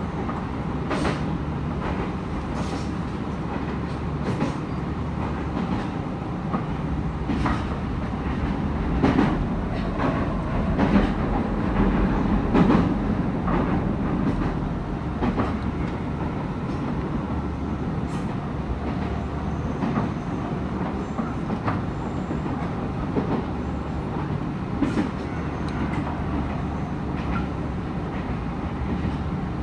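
Nankai electric train running along the track, heard from inside at the front of the car: a steady rumble with irregular wheel clicks over rail joints, swelling louder for a few seconds in the middle.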